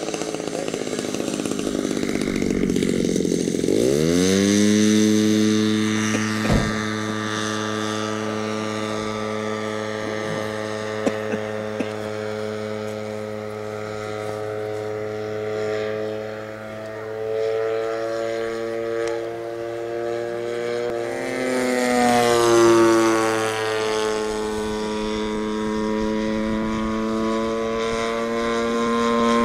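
Propeller aircraft engine droning steadily in flight. Its pitch drops as it passes by, about three seconds in and again around twenty-two seconds in.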